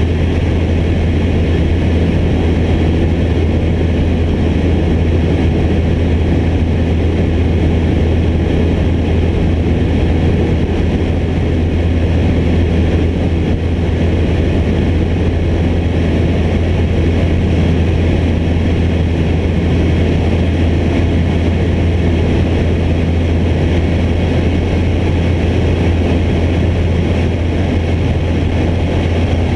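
Cessna light plane's piston engine and propeller running steadily in flight, a constant low drone heard from on board.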